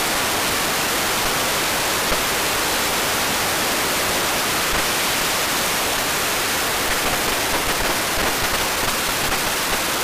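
Ultrasound from an electric motor bearing, picked up at 30 kHz by an Ultraprobe 10,000 ultrasonic detector and converted down to audible sound: a steady, even rushing hiss, slightly more uneven near the end.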